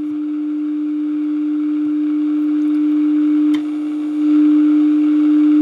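A steady low test tone from the 1948 General Electric tube radio's speaker: the signal generator's modulated 455 kHz IF signal coming through the set. It grows gradually louder as the first IF transformer is peaked, dips briefly with a click about three and a half seconds in, then comes back louder.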